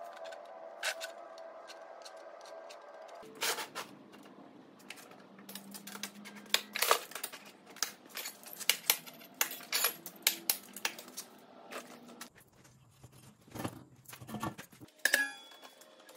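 Hand-tool work on a steel sheet: irregular sharp metallic clicks and clanks as the sheet is marked off and gripped with locking pliers and clamps for bending.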